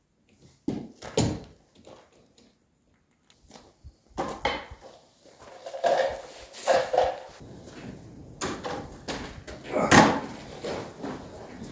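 Irregular knocks, clunks and scraping from handling garage door panels and hardware during installation. Two sharp knocks about a second in, then quiet, then scattered knocks and rubbing from about four seconds, with the loudest knock about ten seconds in.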